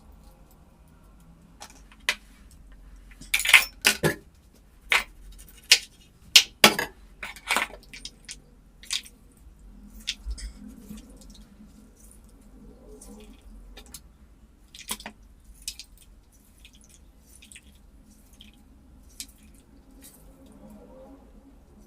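Kitchen utensils clicking and knocking against dishes during food preparation: a quick run of sharp knocks a few seconds in, then scattered lighter clicks.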